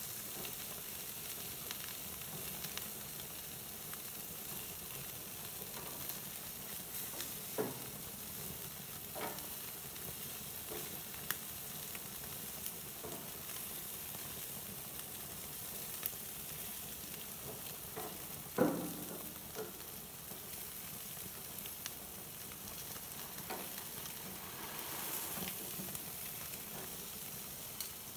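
Atlantic salmon steaks sizzling on a barbecue grill, a steady hiss, with scattered clicks and scrapes of metal tongs and a spatula on the grate; the loudest knock comes about two-thirds of the way through.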